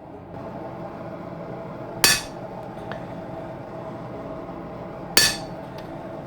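Two slow, ringing hammer blows on a fullering tool set on the steel of a leaf-spring sword blade, about three seconds apart, roughing in the fuller. A steady hum runs underneath.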